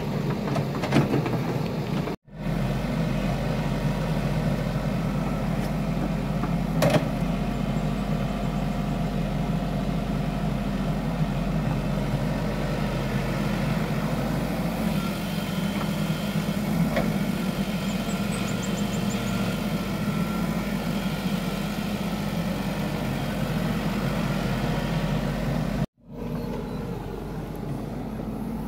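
Hitachi compact excavator's diesel engine running steadily as it digs, with a single sharp knock about seven seconds in. The sound cuts out for an instant twice.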